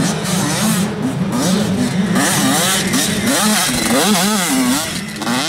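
85cc two-stroke motocross bike revving hard over sand whoops and a jump, its engine note swooping up and down several times as the throttle is worked, loudest about four seconds in as it passes close. A steadier engine drone runs underneath.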